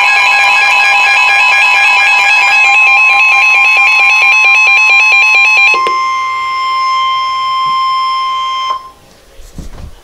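Weather alert radios sounding their flood-warning alarm together: loud electronic beeping over steady tones, with a fast pulsing pattern. About six seconds in the pulsing stops and a single steady tone carries on, cutting off suddenly near nine seconds, followed by a few faint knocks.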